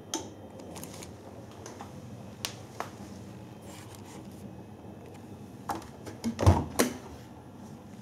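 Scattered light clicks and knocks, then about six and a half seconds in a thump and clatter as the front-loading washing machine's door is pulled open at the end of the cycle.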